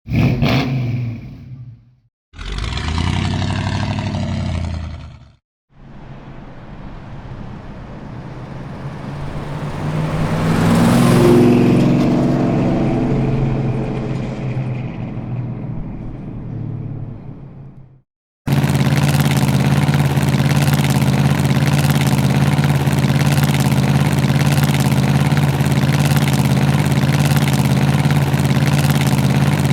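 Muscle car exhaust in a run of separate clips: a short rev dying away, a second rev of about three seconds, then a car accelerating past, louder until about 11 seconds in and fading away. After a short gap the engine idles with a steady, even, deep note.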